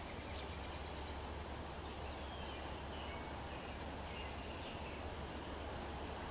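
Woodland birds calling: a rapid trill on one high note in the first second, then faint short chirps, over a low steady rumble.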